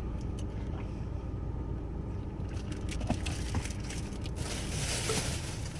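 Steady low rumble of a car's interior, with a few faint clicks and a soft hiss that rises about halfway through and fades near the end.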